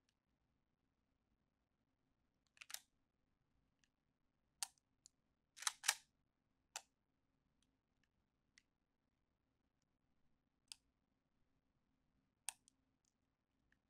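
Faint scattered metallic clicks from a Hungarian AK-55 rifle being handled, about seven in all, the loudest a quick pair about six seconds in.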